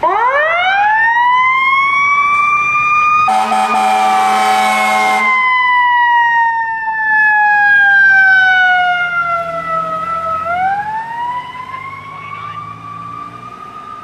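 Fire rescue truck's siren winds up to a high wail, falls slowly in pitch, and winds up again about ten seconds in. An air horn blasts over it for about two seconds, a few seconds in, the loudest sound here.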